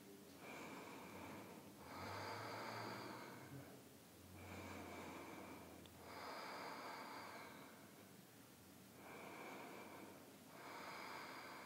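A person's slow, audible ujjayi yoga breathing, breathing in and out through the throat. It comes as about six faint, hissing breaths of one and a half to two seconds each, three full breaths in all.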